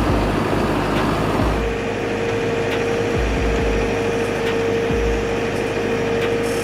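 Engine-driven machinery running steadily, with a steady high-pitched whine that sets in about a second and a half in and holds.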